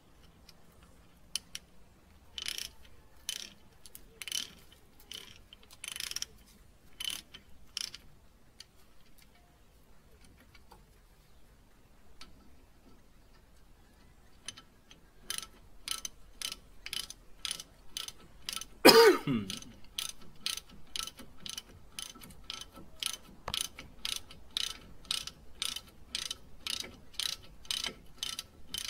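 Hand ratchet wrench clicking as it turns a brake caliper bolt, first in short groups of clicks, then in a steady run of about two to three clicks a second. About two-thirds of the way through comes one loud, sharp report with a short tone sliding down in pitch.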